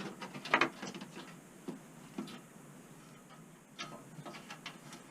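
Scattered small clicks and rattles of a plastic wiring connector being handled and fitted to a furnace's new hot-surface igniter lead, with a cluster of clicks about half a second in and another near four seconds.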